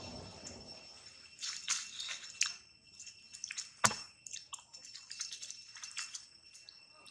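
Short, irregular crackles and rustles of dry leaves as monkeys pick through the leaf litter, with one sharp knock about four seconds in. A steady high-pitched insect drone runs underneath.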